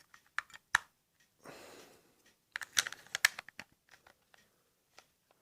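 Small plastic clicks and a short scrape from a Vodafone Zap pager being handled as a battery is fitted into it: a few single clicks, a brief scrape about a second and a half in, then a quick cluster of clicks around three seconds in.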